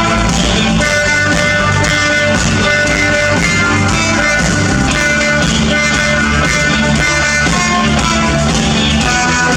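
Live instrumental rock music, led by guitar, with long held notes over a steady bass line.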